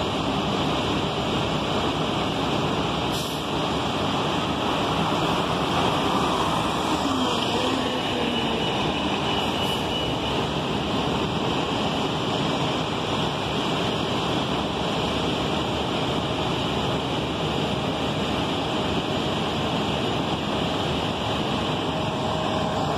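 City transit buses and street traffic running: a steady wash of engine and road noise, with a falling engine note about five seconds in as a vehicle moves off.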